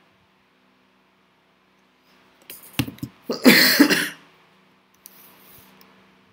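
A man coughs about three and a half seconds in, just after a couple of light clicks. A faint steady hum runs underneath.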